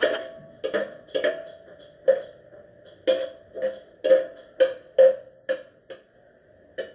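Metal utensil knocking and scraping against a frying pan as it stirs the sauce: about a dozen short clinks at irregular spacing, roughly two a second.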